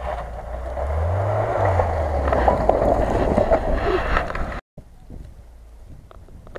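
Lada Niva's four-cylinder petrol engine revving under load as the 4x4 drives through snow, its pitch rising about a second in. The sound cuts off abruptly about four and a half seconds in, leaving only faint, much quieter noise.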